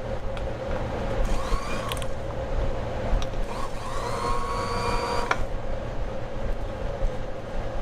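Brother class 15 sewing machine run in two short bursts, each a whine that rises in pitch, holds, then stops abruptly, over a steady hum.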